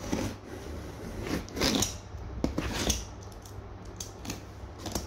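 Cardboard box being cut and opened by hand: a few short rasping scrapes of a utility-knife blade through packing tape and cardboard, with rustling, then small sharp clicks near the end.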